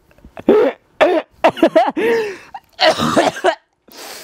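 A young man laughing hard, in uneven breathy bursts broken by gasps and coughing.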